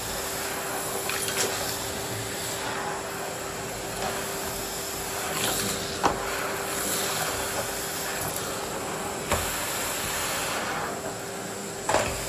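Miele vacuum cleaner running steadily, a constant rushing noise with a steady tone under it. Four short sharp knocks break through, about a second in, near the middle, and twice near the end.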